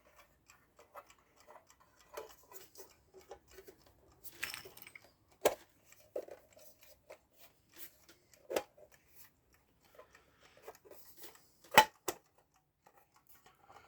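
Small, irregular metal clicks and taps from fitting the back cover onto a mechanical alarm clock, with three sharper knocks about five and a half, eight and a half and twelve seconds in.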